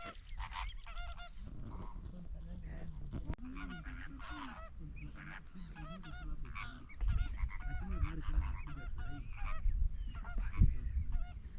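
A flock of flamingos calling, many short goose-like honks overlapping without pause. A low rumble joins about seven seconds in.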